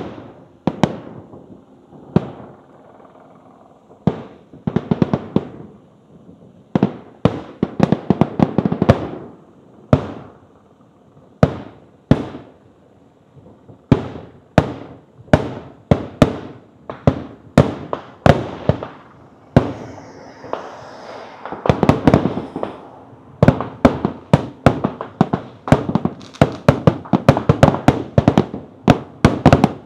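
Aerial fireworks display: a string of sharp bangs with echoing tails. They start about a second apart and come faster and faster, until the last several seconds are a dense run of overlapping bangs, with a brief crackling hiss about two-thirds of the way through.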